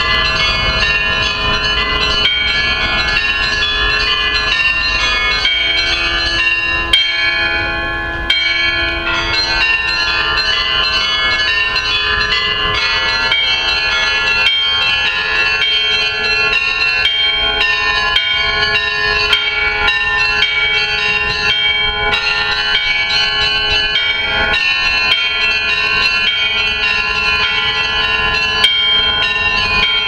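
Russian Orthodox church bells pealing: many bells of different pitches struck in quick, continuous succession, with their tones ringing on and overlapping.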